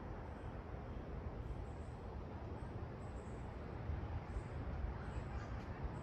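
Wind buffeting the microphone outdoors: an uneven low rumble that swells briefly about four to five seconds in.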